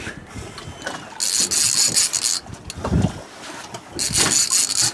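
A fishing reel's drag screaming in two bursts of high, whining zing as a large skate runs and pulls line off the reel. Wind and boat noise sit underneath.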